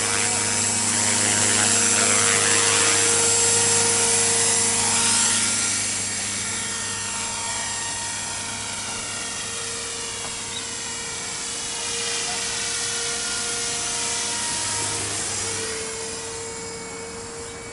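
KDS450Q radio-controlled helicopter in flight: its motor and rotor give a steady hum and whine that swells and fades as it manoeuvres. It is loudest a few seconds in and grows fainter near the end.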